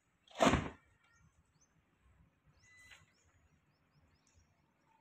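A short, loud burst of noise about half a second in, then faint bird chirps in the background.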